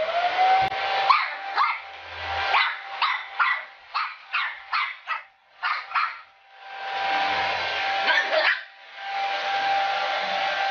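Handheld hair dryer blowing, its motor whine rising to a steady pitch as it comes on, with a run of quick, sharp puppy barks and yips at it. The dryer drops out briefly twice and then runs steadily again.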